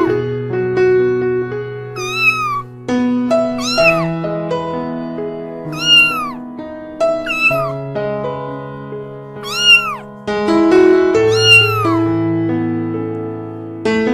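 A domestic cat meowing about six times, each meow rising and then falling in pitch, over background piano music.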